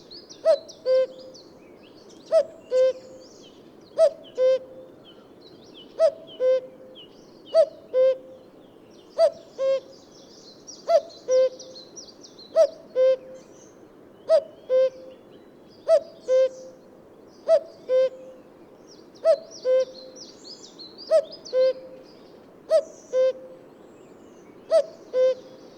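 Male common cuckoo calling its two-note "cuck-oo", the second note lower than the first, repeated about fifteen times at an even pace of roughly one call every one and a half to two seconds. Other small birds chirp faintly behind it.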